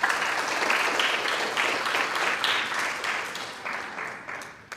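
Small audience applauding, the clapping fading away near the end.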